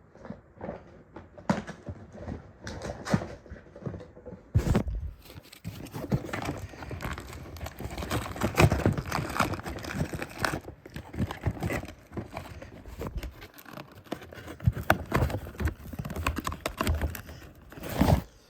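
Toy packaging being pulled apart by hand: irregular crinkling, rustling and tearing of cardboard and plastic, with sharp clicks and knocks.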